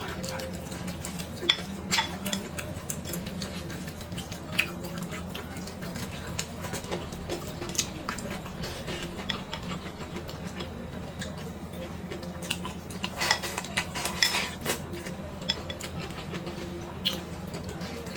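Eating utensils clicking and scraping against a bowl and dishes during a meal, in scattered single clicks with a busier cluster about two-thirds of the way in, over a steady low hum.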